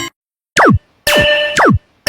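Synthesized cartoon sound effect repeating about once a second: a short ringing tone followed by a quick falling 'pew' sweep.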